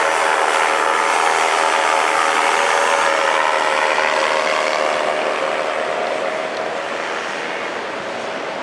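Rebuilt Moster 185 single-cylinder two-stroke paramotor engine and propeller running steadily at climb power, running smoothly. Its pitch drifts slightly lower and the sound gradually fades from about five seconds in as the paramotor climbs away.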